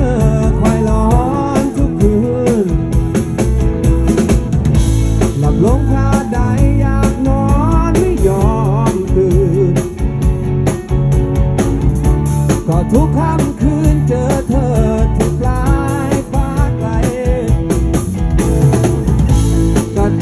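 A live rock band playing a Thai pop-rock song: two electric guitars over bass and a drum kit, with a male lead singer.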